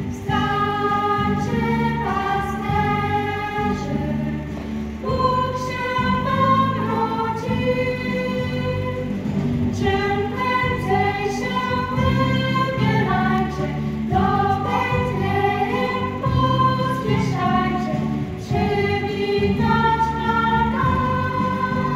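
Children's choir singing a Christmas song, held notes moving from one pitch to the next over a steady low accompaniment.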